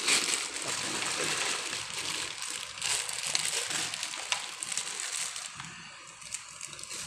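Plastic bag crinkling and dry dog kibble being handled and mixed with wet boiled squash and chicken liver, a dense rustling with small clicks and some wet sloshing. It grows quieter near the end.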